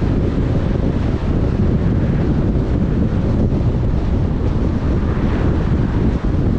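Steady low rumble of a car driving: road and wind noise.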